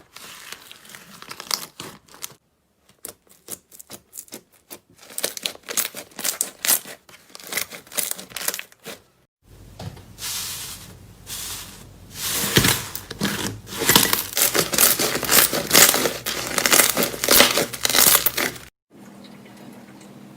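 Slime being squeezed and pulled by hand, making sticky crackling and popping clicks. It comes in separate stretches broken by abrupt cuts, with the loudest, densest crackling in the second half. Near the end it cuts off abruptly to a faint steady hum.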